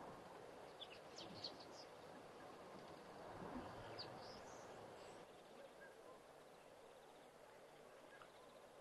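Faint outdoor ambience with a few brief, high bird chirps about a second in and again around four seconds in; otherwise near silence.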